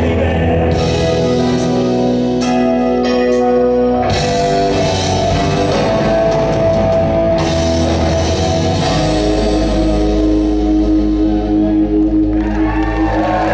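Live rock band playing: electric guitars, bass, keyboards and drum kit, with cymbal crashes a couple of seconds in and a long held chord from about nine seconds in, its cymbal ring dying away near the end.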